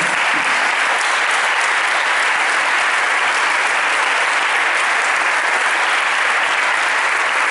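Dinner guests applauding: steady, sustained clapping from a roomful of people.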